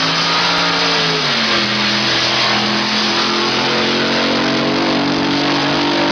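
A loud engine running hard, with a dense rushing noise over its tone; its pitch drops about a second in and then holds nearly steady.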